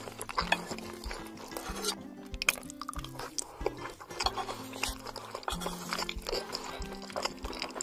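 Close-miked chewing of a mouthful of meat lasagna: a quick, irregular run of small mouth clicks and smacks, over background music with held low notes.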